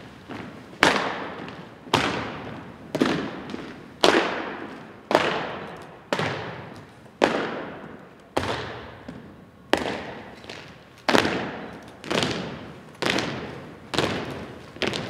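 A drill team's shoes stomping in unison on a gymnasium's hardwood floor, one sharp beat about every second, each ringing on in the hall's echo.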